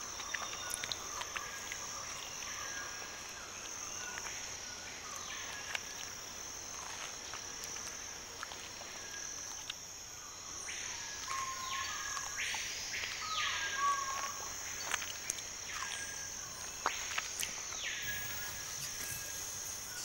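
Rainforest ambience: a steady high-pitched insect drone, with a few short animal calls over it in the second half and scattered faint clicks.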